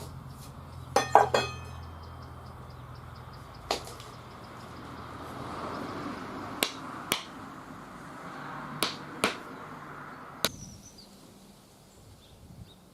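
Sharp knocks: a quick cluster of three about a second in, then single knocks every second or two, over a low steady hum that stops about ten seconds in.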